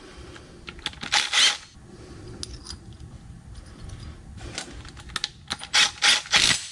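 Cordless power driver spinning small 10 mm bolts out of a steel bracket on an adjustable upper control arm, in short bursts about a second in and again near the end, with light clicks and clinks of metal parts in between.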